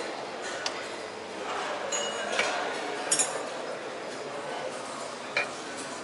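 Restaurant clatter: dishes and cutlery clinking, with a few sharp clinks standing out (the loudest about three seconds in) over a steady murmur of voices.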